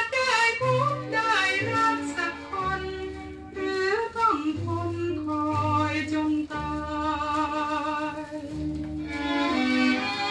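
Thai pop song played from a vinyl record: violins carry a wavering melody over a string section and bass line.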